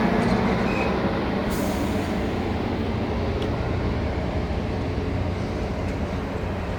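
Caltrain passenger train rolling by on the rails, a steady rumble that slowly fades as it moves away.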